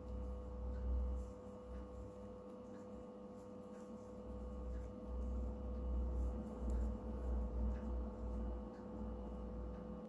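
Faint rustling and light ticks of a metal crochet hook working fuzzy yarn, over a steady electrical hum and a low rumble of hand handling that rises and falls.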